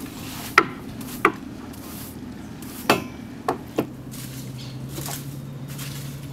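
Sharp wooden knocks on a boat, five of them at uneven intervals, as a long pole or handle strikes the deck and hull. A steady low hum comes in about four seconds in.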